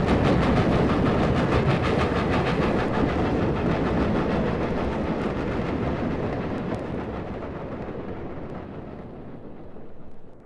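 Loud steady rumbling noise with a fine rapid clatter in it, fading gradually and dying away near the end.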